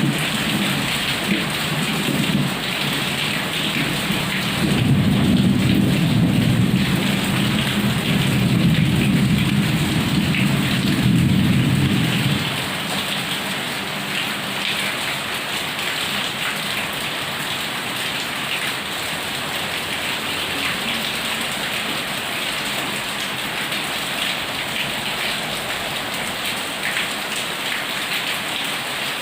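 Heavy rain pouring steadily, with a low thunder rumble that swells about five seconds in and dies away at around twelve seconds, leaving only the rain.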